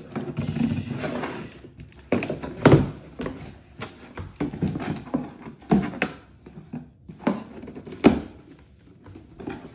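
A kitchen knife slitting the packing tape along a cardboard box's seam, a scraping for the first second or two, then cardboard flaps being pulled open and the box handled, with several sharp thunks.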